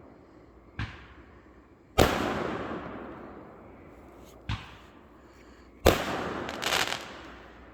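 Aerial fireworks: two small thumps, each followed about a second and a half later by a loud boom that trails off, typical of shells launched from a mortar tube and bursting overhead. A short burst of crackling follows the second boom.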